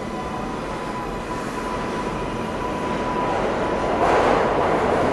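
New York City subway trains in an underground station. A steady high whine runs with the rumble of a train pulling out, then the rumble of an arriving (4) train swells about three seconds in as it rolls up to the platform.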